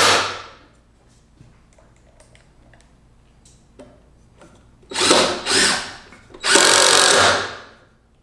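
Cordless drill driving screws into a 2x4 support rail. A run of the drill dies away just after the start, then after a pause come two short bursts and one longer run.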